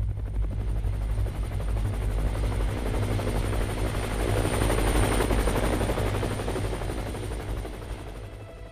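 Helicopter flying over: a low rumble with fast, even rotor beats that grows louder to about five seconds in, then fades away.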